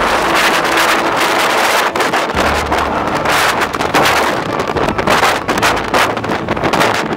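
Bora wind gusting at storm force, buffeting the microphone with a loud, rushing, fluttering roar and low rumble that swells and eases from gust to gust.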